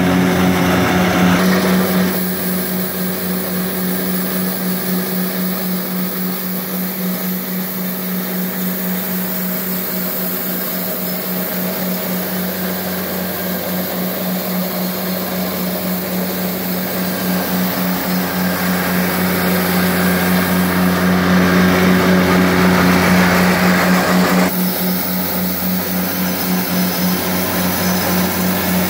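Walker MD mower's Kubota D722 three-cylinder diesel engine running steadily, with its front rotary broom brushing across wet pavement. The sound changes abruptly about 2 seconds in and again near the end.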